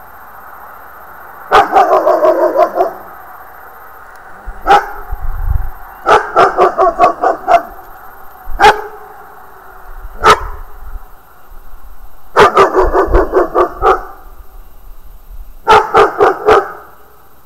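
A dog barking repeatedly: quick runs of several barks at a time, with single barks between the runs.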